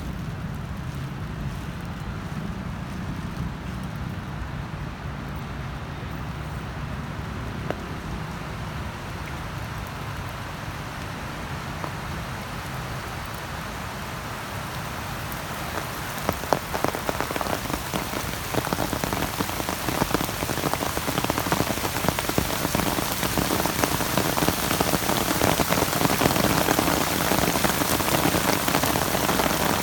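Rain falling, the dense small impacts of drops growing louder and heavier about halfway through.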